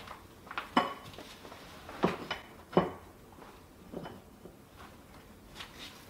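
Ceramic tiles and tiling tools clinking and clacking against each other and the countertop as they are handled: a few sharp clinks in the first three seconds, then fainter taps.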